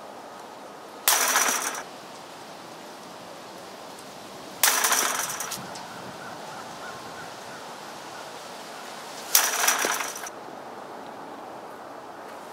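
Baseballs hitting a chain-link fence three times, about 1, 4.5 and 9.5 seconds in. Each hit is a sudden metallic crash and rattle of the wire mesh with a thin ringing tone that dies away within a second.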